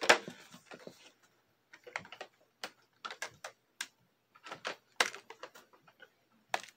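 Clear plastic blister pack being snipped with hobby nippers and handled: irregular sharp clicks and crackles of plastic, in short clusters with pauses between.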